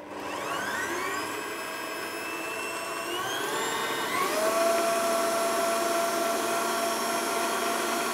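Electric stand mixer switched on, its motor whine rising as it spins up, then climbing to a higher speed about three to four seconds in and running steady while it beats margarine, sugar and egg.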